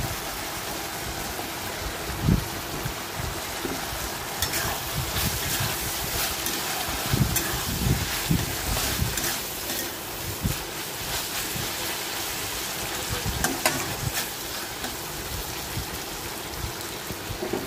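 Kochur loti frying and sizzling in a metal kadai while a spatula stirs it, with scattered knocks and scrapes of the spatula against the pan.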